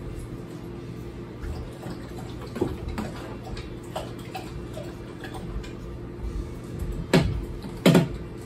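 Hard plastic clicks and knocks from handling a humidifier's tank and its flexible corrugated outlet hose, with two louder knocks close together near the end, over a steady low hum.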